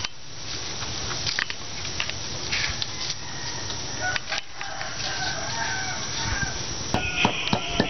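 Chickens in the background with a rooster crowing, its longest call about four and a half to six seconds in. About seven seconds in, quick knife strikes begin, chopping on a wooden board.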